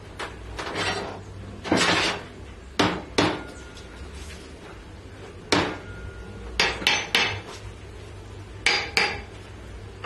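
Metal tubing and tools clanking as they are handled on a wooden workbench: about a dozen sharp clanks at uneven intervals, a few ringing briefly, with two longer scrapes in the first two seconds.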